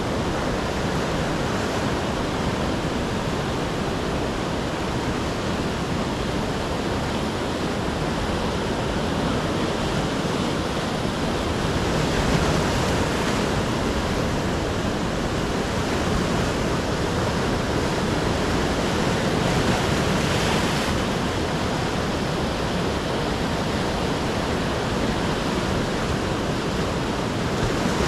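Sea surf breaking and washing over a rocky shore: a steady rush of water that swells louder now and then as waves break.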